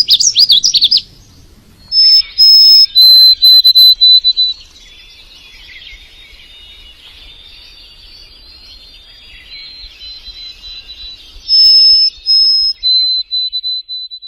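Male songbird singing its call for a mate: loud phrases of high whistled notes and trills at the start, after about two seconds and again near the end, with softer twittering between.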